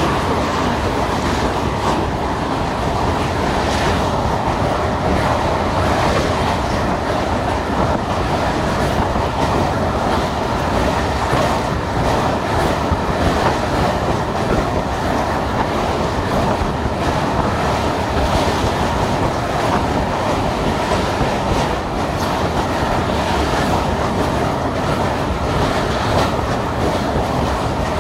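Duranto Express train running steadily over a steel truss bridge, heard from aboard: a continuous rumble with wheels clattering on the rails.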